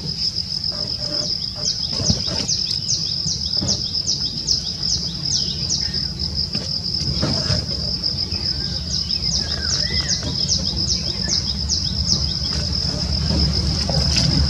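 Natural daytime ambience: a steady high-pitched insect drone with runs of short falling chirps repeated over it, about two or three a second, and a few scattered bird calls. A low rumble lies underneath.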